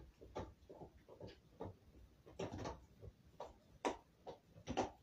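Scissors snipping through blanket fabric: a run of short, irregular cuts and rustles, the two loudest near the end.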